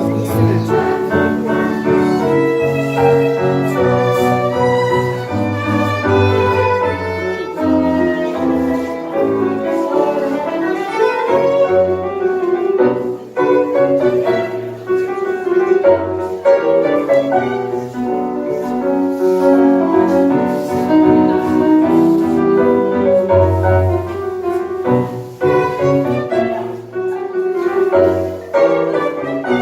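Live tango music: a violin playing the melody over piano, with other bowed strings beneath.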